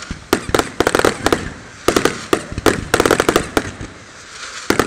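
Fireworks display: aerial shells and fountains going off in rapid volleys of sharp bangs, several quick reports per volley, about five volleys with short lulls between and a longer lull near the end.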